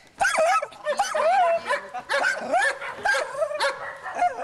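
Small dog yapping and yelping, a quick run of high yips at about three a second.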